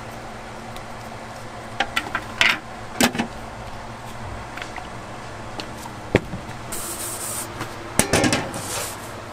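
Scattered sharp knocks and clicks of kitchen tools over a steady low hum, ending with a short run of metallic clanks as an aluminium pizza peel is handled on the counter.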